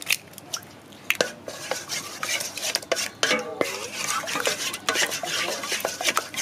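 Raw eggs being beaten with a wooden spatula in a stainless steel bowl: fast, irregular clicking and scraping of wood against the metal, starting about a second in.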